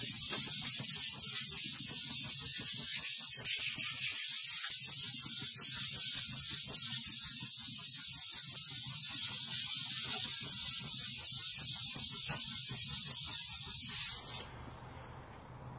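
Sanding block rubbed back and forth by hand along a steel handsaw blade to take out scuff marks, a fast, even scratching of rapid strokes that stops abruptly near the end.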